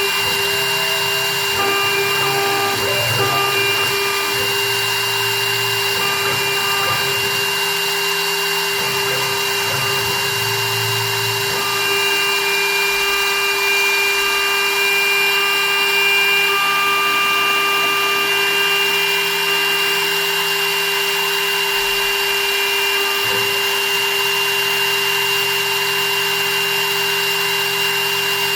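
Spindle of a small CNC milling machine for jewelry rings running with a steady high whine, and a lower hum underneath that comes and goes.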